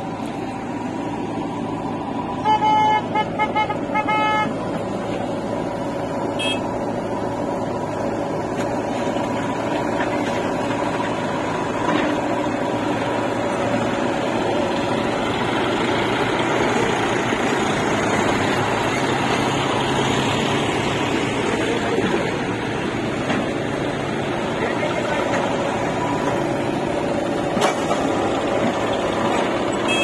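Diesel engines of farm tractors and a backhoe loader running steadily. About two and a half seconds in, a vehicle horn sounds in a quick series of short toots.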